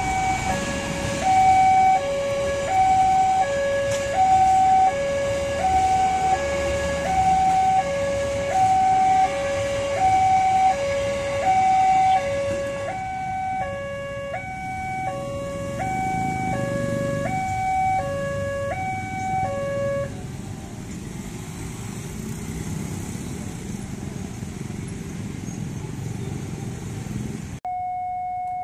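Level-crossing warning alarm sounding an electronic two-tone signal, high and low tones alternating about every 0.7 seconds, over the low rumble of a diesel-hauled passenger train passing on the rails. The alarm stops about 20 seconds in, leaving the rumble of the passing train.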